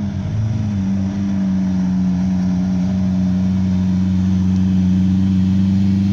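Lamborghini Aventador Roadster's V12 engine at low revs as the car rolls slowly past, a steady engine note that grows slowly louder as it comes closer.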